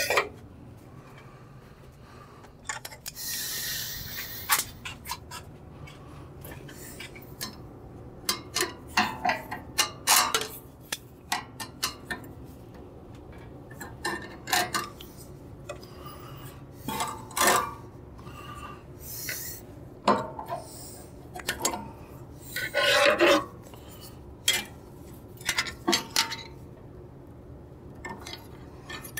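Irregular metal clinks, taps and light scrapes of hand tools and the steel blade guide parts of an old bandsaw being handled and adjusted, with a hiss lasting about a second and a half near the start.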